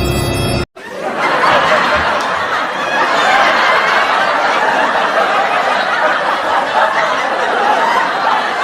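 Laughter from many people at once, dense and steady, starting about a second in after a burst of eerie music cuts off.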